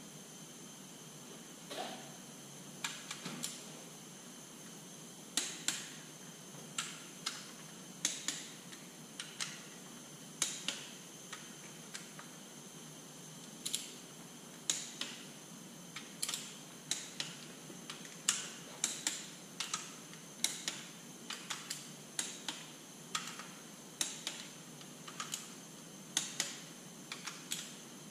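Hand ratchet wrench clicking in short, irregular strokes, about one or two clicks a second, starting about two seconds in, as the front cover bolts of a Detroit Diesel 3-53 engine are tightened toward 35 foot-pounds.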